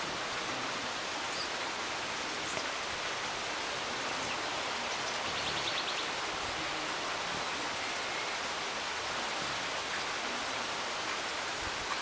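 Steady rush of a nearby river flowing. About five seconds in, a brief high, rapid ticking trill.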